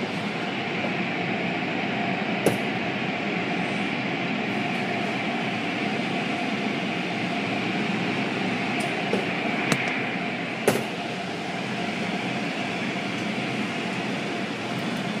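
Automatic car wash heard from inside the car: a steady rush of water spray and spinning brushes over a machinery hum. Three sharp knocks come through it, one early and two around the middle.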